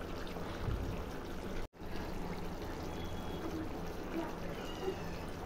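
Chicken curry simmering in a steel pot: a steady, soft bubbling hiss of the liquid cooking.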